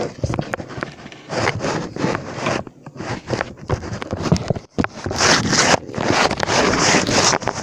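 Loud, irregular scraping and rustling from something being handled, broken by a couple of brief pauses.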